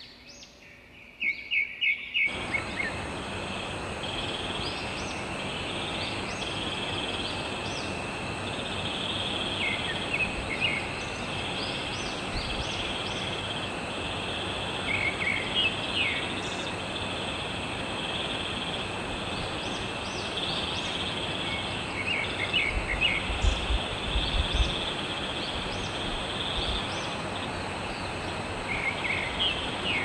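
Wild birds chirping in short clusters of quick high notes every few seconds over a steady hiss and a constant high drone. The first two seconds hold a separate, louder run of evenly spaced calls that stops abruptly.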